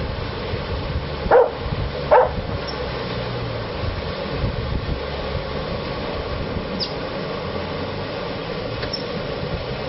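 A dog barking twice, about a second in and again a moment later, over the steady running noise of a paddle steamer under way on the river.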